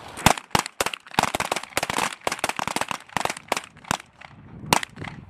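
Sig Sauer M17 and M18 9mm pistols fired by several shooters on a firing line: a rapid, irregular string of about twenty shots, some overlapping, thinning out near the end with one last loud shot.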